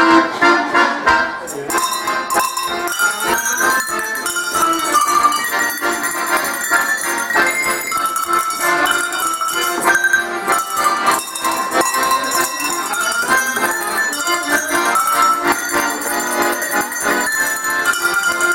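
A set of tuned cowbells rung in a quick melody, with rapid ringing strikes, over a softer accordion accompaniment.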